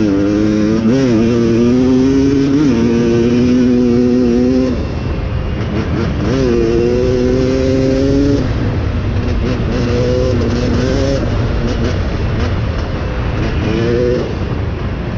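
Dirt bike engine running under throttle while riding. Its pitch holds, dips and climbs again several times, fading back in places, over a steady rushing noise.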